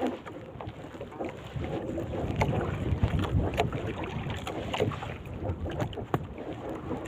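Water lapping and sloshing against the hull of a small wooden fishing boat, with wind buffeting the microphone and scattered knocks and clicks.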